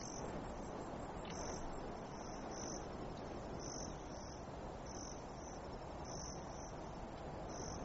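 Insects chirping: short high chirps, often in pairs, repeating every second or so over a steady background noise.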